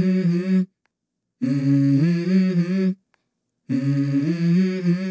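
Wordless hummed vocal melody in short phrases of held notes that step up and down in pitch, each phrase stopping dead into complete silence: the opening of the outro music.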